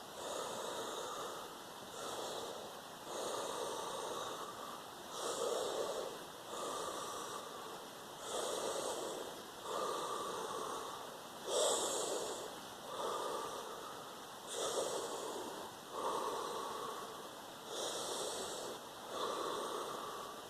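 A person breathing forcefully and rhythmically as a breathing exercise, one loud noisy breath about every second and a half.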